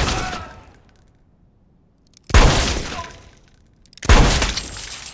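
Revolver shots: three loud bangs, one right at the start, one about two seconds later and one about four seconds in, each dying away over about a second.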